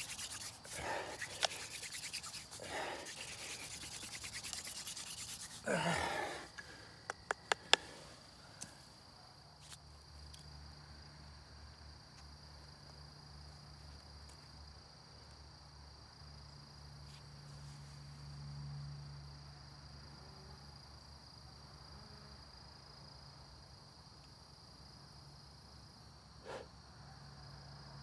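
Wooden hand-drill spindle twirled in a hearth board's notch, a dry rhythmic rubbing with each stroke for about six seconds. The spindle has already made an ember. A few sharp clicks follow, then a steady high insect trill and a faint low hum.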